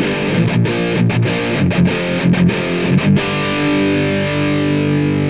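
Outro music led by distorted electric guitar over a steady beat. About three seconds in, the beat stops and a final chord rings out.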